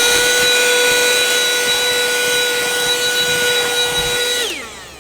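Mini cordless car vacuum cleaner running at full speed, a steady high motor whine over a rush of air, as it sucks spilled dust back up. Near the end it winds down and stops.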